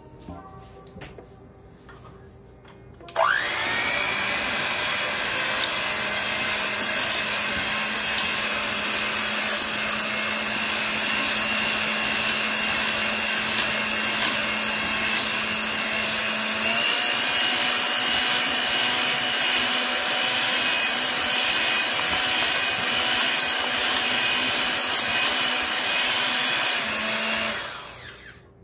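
Electric hand mixer switching on about three seconds in with a quick rising whine, then running steadily at high speed, its beaters whisking a liquid egg-and-cream mixture in a metal bowl, and winding down near the end.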